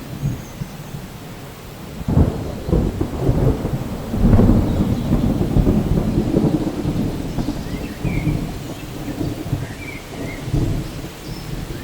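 Rain falling during a thunderstorm, with rolling thunder: a deep rumble swells about two seconds in and is loudest around four seconds in, then rolls on.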